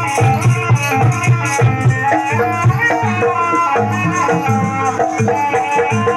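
Javanese gamelan-style accompaniment for a trance dance, played loud. Hand drums beat a running rhythm under a melody of pitched struck metal notes, with a rattling jingle on top.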